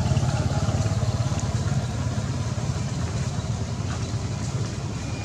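An engine idling steadily, a low pulsing rumble that eases slightly after the first two seconds.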